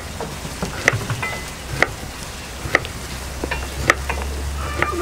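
A spoon stirring rice and cooked beans in a pot, knocking against the side of the pot about once a second, over a faint steady sizzle.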